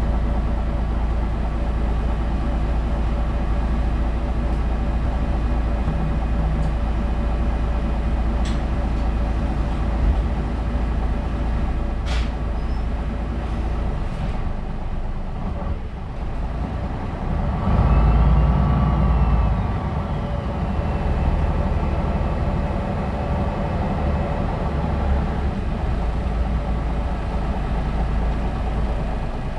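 Diesel engine of a MAN NL313 (A21) city bus running steadily with a deep rumble. It dips for a moment about fifteen seconds in, then grows louder for a couple of seconds, with a few short clicks earlier on.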